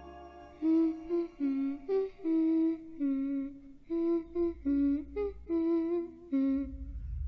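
A lone voice humming a slow, simple tune of about a dozen short notes that step up and down, like a lullaby.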